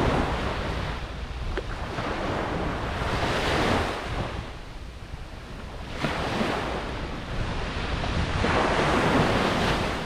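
Ocean surf, waves breaking and washing up the beach one after another, the roar swelling and fading every three seconds or so over a steady low rumble.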